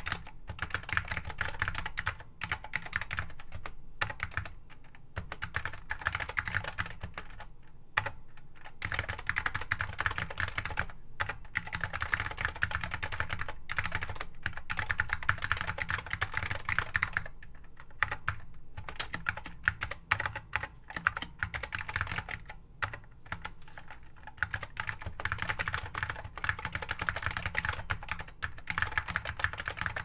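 Typing on a 1986 Apple Desktop Bus Keyboard (658-4081): rapid, steady keystroke clicks from its Alps mechanical key switches, in runs broken by brief pauses every few seconds.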